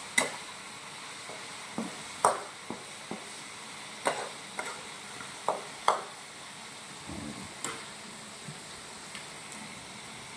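A monkey handling crispy fried insects on a ceramic plate and biting into them: scattered sharp clicks and crunches, a dozen or so, over a steady background hiss.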